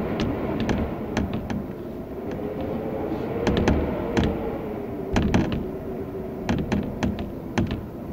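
Wind howling, a faint tone that rises and falls, while window shutters rattle and knock in irregular clusters of sharp clicks.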